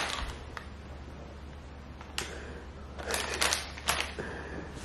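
A few light clicks and soft crinkles of plastic snack packaging being handled, about five clicks spread over a few seconds, most of them in the second half.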